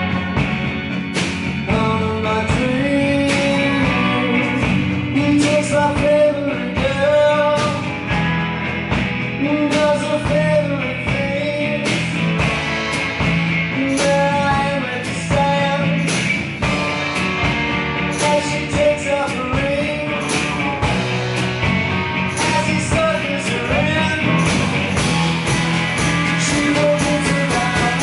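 Live country-rock band playing: a sung lead vocal over strummed acoustic guitar, electric guitar, keyboard and a steady drum beat.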